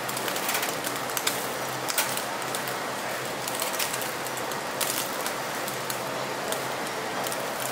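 Raw marbled beef rib cuts sizzling on a wire grill over charcoal: a steady hiss broken by frequent, irregular sharp crackles and pops.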